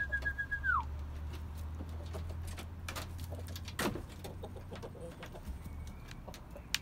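A person's long steady whistled note calling the hens out, ending with a downward slide in the first second, then a few sharp knocks over a low rumble as the chickens come out of the wooden coop.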